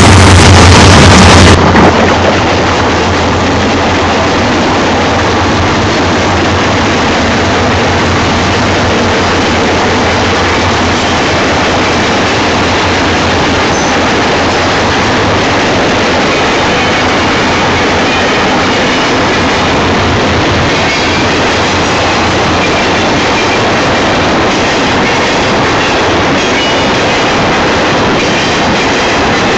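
Union Pacific manifest freight train passing close by: its diesel locomotives go by first, then the freight cars roll past with a steady, loud noise of wheels on rail. The sound is loudest for the first couple of seconds, with a strong low hum.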